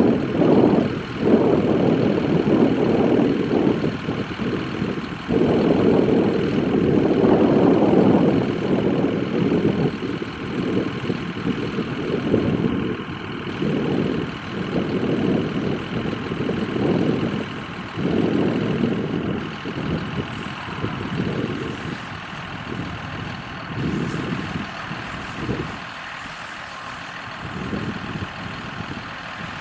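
Steyr CVT 6230 tractor running under load while pulling a Mascar Multiwrap 130 combined round baler-wrapper, a steady engine and machinery rumble that swells and falls, growing quieter in the second half.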